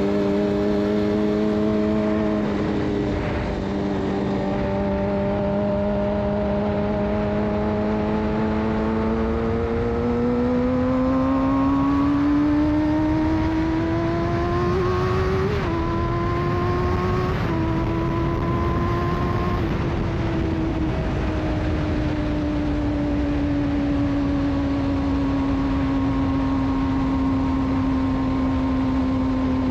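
Suzuki GSX-R 600 inline-four sport bike with a de-catted Yoshimura exhaust, heard from the rider's seat. It holds a steady note, then revs up under acceleration, with two quick drops in pitch near the middle, and eases off so the pitch falls slowly toward the end.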